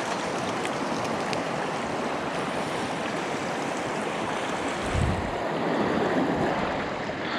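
Mountain stream running, a steady rush of water, with a brief low thump about five seconds in.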